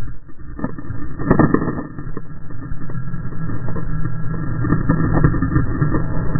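Water spray and wind rushing over a camera on a kiteboarding control bar as it ploughs through the water. The rushing rumble is steady, with a burst of splashing and knocks about a second and a half in.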